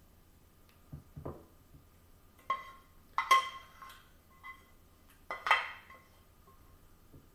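A spoon scraping and knocking against the inside of a stainless steel saucepan, giving a series of ringing metallic clinks, the loudest a little past three seconds and about five and a half seconds in. A couple of soft dull thuds come about a second in.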